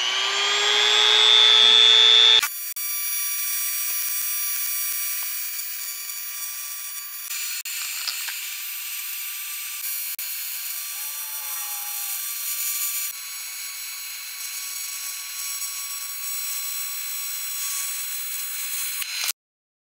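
A small handheld tungsten grinder runs for about two seconds, rising in pitch as a TIG tungsten electrode is sharpened to a point. Then a TIG welding arc buzzes and hisses steadily on an aluminium radiator, cutting off suddenly near the end.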